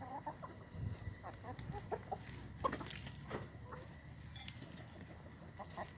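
Chickens clucking: a scattering of short clucks from several birds, with a couple of sharp taps partway through.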